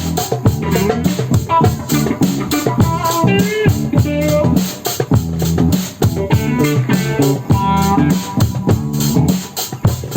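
Live band jamming: guitar, bass guitar and drum kit playing together over a steady beat.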